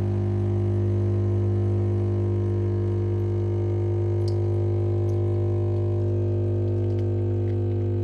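Pod espresso machine's pump running with a steady, even hum while it brews espresso into the mug. A faint tick about four seconds in.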